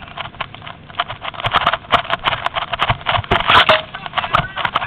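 Irregular rustling, crackling and knocking of movement through dry brush close to the microphone, dense and uneven, loudest in the middle.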